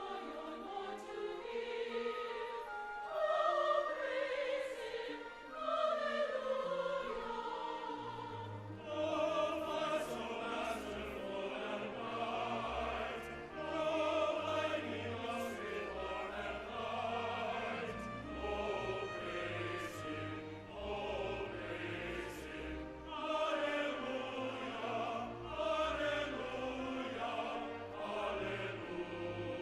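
Background choral music: a choir singing a slow classical piece with accompaniment, a low bass part coming in about eight seconds in.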